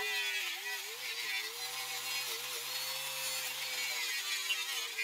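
Angle grinder with a twisted wire wheel scouring rust and old paint off steel: a motor whine that sags and recovers several times as the wheel is pressed into the metal, over a steady scratchy hiss.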